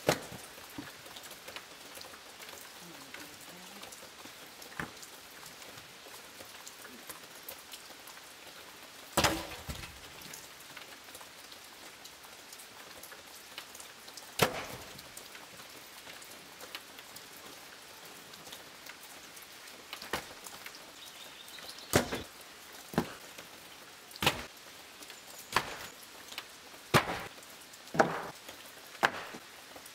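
Wooden planks knocking and clattering as scrap boards are thrown onto a pile: a few scattered sharp knocks in the first half, then a run of them about one a second near the end, over a steady background hiss.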